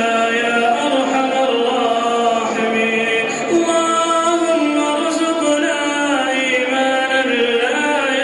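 A man's voice chanting in long, drawn-out melodic phrases with slow bends in pitch, in the style of Quran recitation.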